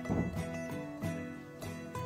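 Background instrumental music with plucked notes.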